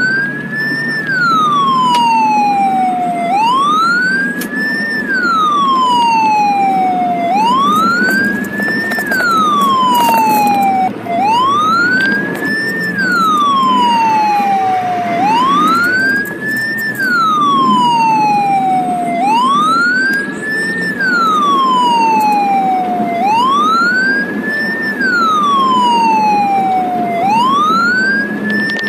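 Ambulance siren wailing, each cycle rising quickly and falling slowly, repeating about every four seconds. It is heard from inside the ambulance over a low engine and road rumble.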